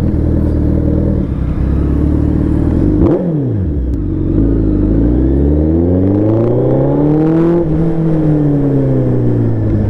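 Suzuki Hayabusa's inline-four engine under way, its pitch dropping sharply about three seconds in, then rising steadily for about three seconds as the throttle opens and falling back off.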